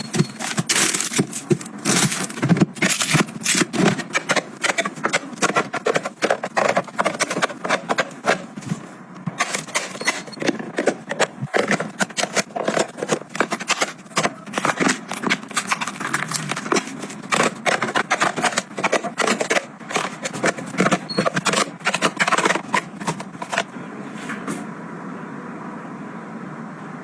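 Household items being handled: a dense, rapid run of clicks, knocks and rustles as things are picked up, moved and set down. About three seconds from the end this eases into a quieter, steady hiss.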